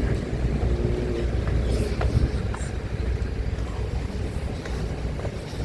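Strong wind buffeting the microphone, a steady low rumble, with a few faint clicks about two seconds in.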